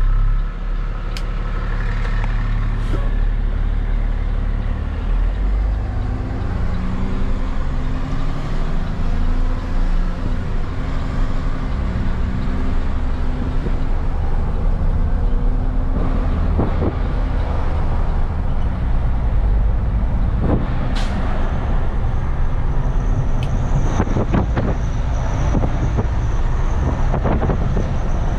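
Heavy-duty tow truck's diesel engine pulling away and accelerating, heard from inside the cab, its pitch climbing and dropping in steps as it works up through the gears. Road noise and knocks and rattles from the cab build as the truck gets up to speed.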